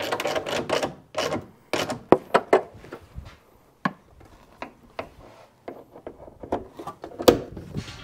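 A screwdriver scraping and clicking against the hood's strut mounting point during the fitting of a gas strut hood support, in irregular strokes, with one sharp click near the end.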